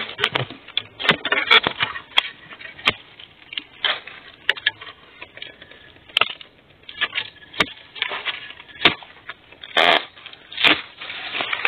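Dry bamboo leaf litter crunching and rustling, with scattered sharp snaps and knocks, as a long-handled digging spade works loose a wild bamboo shoot and it is pulled from the ground. The rustling grows denser twice near the end.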